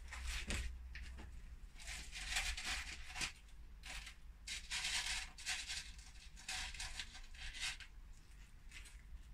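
Irregular bursts of dry rustling and scratching, like packaging or a bag being handled, over a faint steady low hum.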